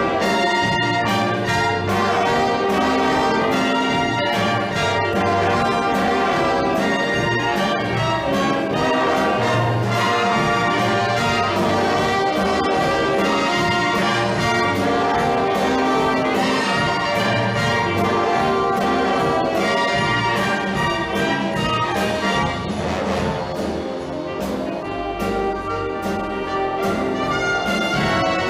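Big band music in a swing style: brass (trumpets and trombones) playing over a steady drum beat.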